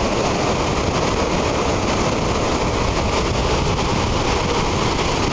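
Steady wind buffeting the microphone, over the rush of river water spilling through the dam below.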